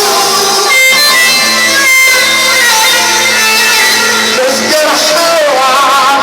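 Loud amplified Egyptian wedding-band music: an instrumental break in a mawwal song, with an ornamented, wavering melody line over steady held bass notes.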